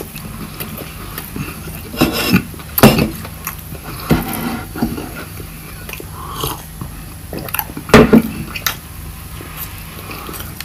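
Close-miked eating sounds: loud open-mouthed chewing, smacking and biting on a soft chocolate treat, in irregular bursts, the loudest about two to three seconds in and again about eight seconds in, over a steady low hum.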